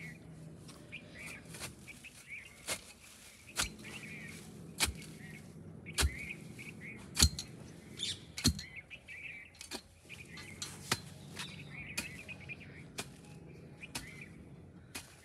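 Small birds chirping throughout, with sharp irregular clicks and knocks, roughly one a second, as a hand fork is worked into a heap of dry chopped fodder; the knocks are the loudest sounds.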